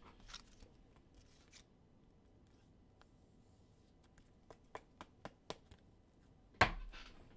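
Faint handling of trading cards and packs on a table: a few small clicks and rustles, then a single sharp thump about two-thirds of the way in.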